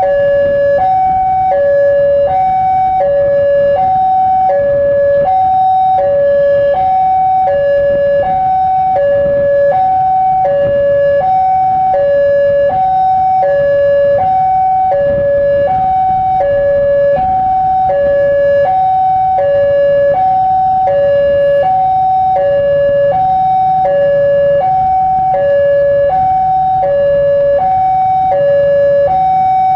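Railway level-crossing warning alarm sounding a steady two-tone electronic signal, a high and a low tone taking turns about every two-thirds of a second. Under it is the low rumble of the approaching diesel locomotive.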